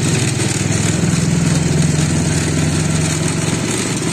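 Sugarcane juice crusher's engine running steadily with a low, even hum.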